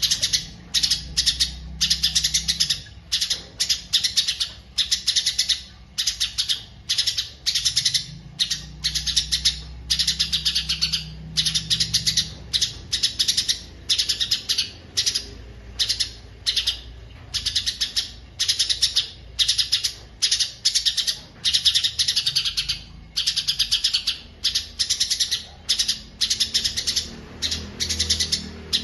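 A caged songbird singing a fast, continuous, high-pitched chattering song of rapid chirps and trills, phrase after phrase with only brief gaps.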